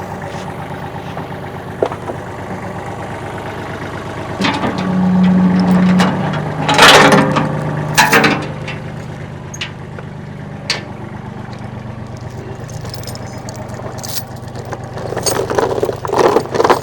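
Engine of a lift machine running steadily while it handles a load. The engine note rises for a second or so about five seconds in, followed by two metallic clanks a second apart and more clattering near the end.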